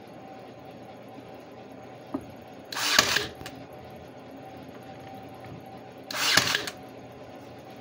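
Cordless battery brad nailer firing twice, about three and a half seconds apart, each shot a short burst of about half a second, driving brads through the roof into the wooden birdhouse. A faint click comes just before the first shot.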